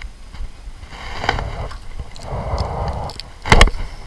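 Clicks and scrapes of fishing rods and reels being handled in a small jon boat, with one sharp, loud knock about three and a half seconds in.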